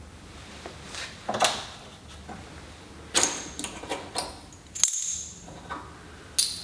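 Steel mounting bolts and hardware clinking as they are handled and set into place, a scattering of light metallic clicks and taps with short pauses between.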